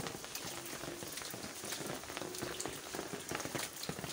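Heavy rain pattering on an umbrella held close overhead: a steady hiss dotted with many sharp drop ticks.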